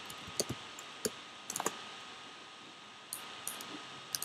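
Typing on a computer keyboard: sharp, irregular keystroke clicks in small bunches, over a faint steady hiss.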